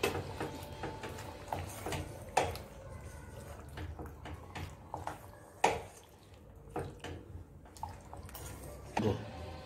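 Silicone spatula and steel spoon stirring thick yogurt-spice marinade through raw mutton pieces in a metal pressure cooker: wet squelching with scattered knocks and scrapes against the pot. The sharpest knocks come about two and a half and five and a half seconds in.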